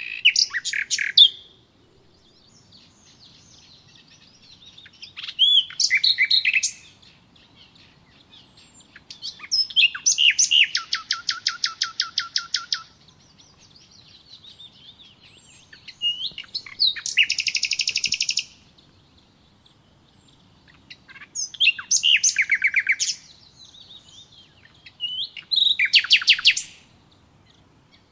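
A songbird singing: about six phrases, each a few quick sliding notes running into a fast trill, with pauses of a few seconds between them.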